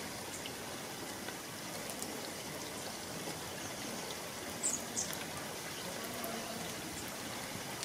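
Shallow, clear stream flowing in a steady trickle. A few short, high chirps, like small bird calls, come a little past the middle.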